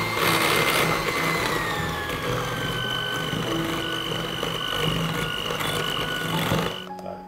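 Electric mixer beating cheesecake filling of cream cheese, cream and gelatin in a glass bowl: a steady motor whine over the churn of the beaters, its pitch shifting slightly as it works. It switches off shortly before the end.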